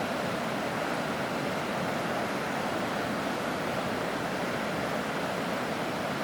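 Mountain river rushing steadily, an even wash of flowing water.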